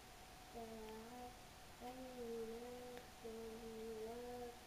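A person humming softly: a few long held notes of about a second each, with short breaks and slight bends in pitch.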